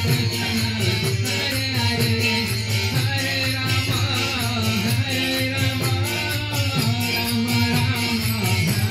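A crowd singing a devotional chant (kirtan) together, with a steady beat of hand-clapping and jingling hand percussion.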